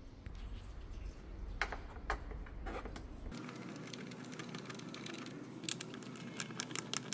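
Light clicks of a hand Torx T20 bit driver working a screw on the plastic air-intake scoop: a few separate clicks at first, then quick runs of clicking near the end.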